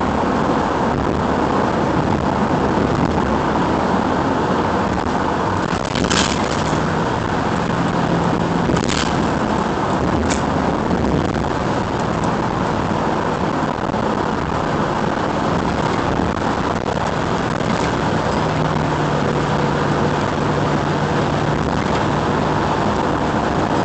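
Steady road noise inside a car's cabin at highway speed: tyre and wind noise with a low engine hum, and a few brief clicks about six to ten seconds in.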